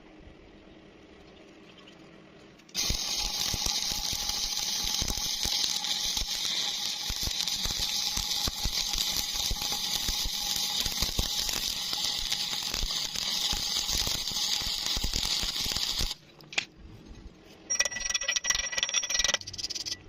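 Electric arc welding: the arc crackles and sizzles steadily for about thirteen seconds, starting about three seconds in and cutting off suddenly, then strikes again briefly for under two seconds near the end.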